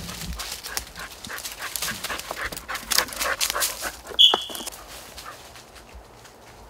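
Dry fallen leaves and brush crunching and rustling underfoot as people and an English setter move through the woods. The crackling is dense for about four and a half seconds, then dies down. A short high-pitched tone sounds just after four seconds.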